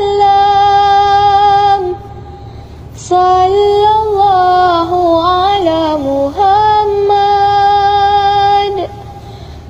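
A high solo voice singing an Arabic devotional song in praise of the Prophet Muhammad (a shalawat), in long drawn-out notes with light music behind it. The singing breaks off briefly about two seconds in and again near the end.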